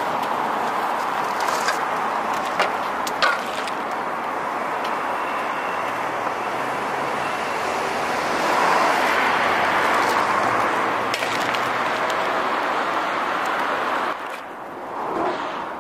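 Steady road traffic noise from passing cars, swelling about nine seconds in and dropping away near the end. A few light knocks about two and three seconds in.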